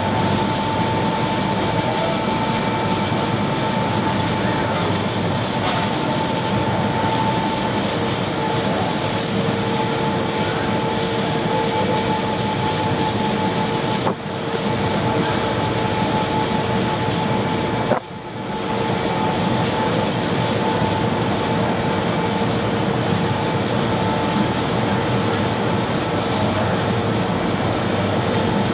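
Steady drone of a boat's engines with rushing water, holding two faint steady hums; it drops out briefly twice, about halfway through and a few seconds later.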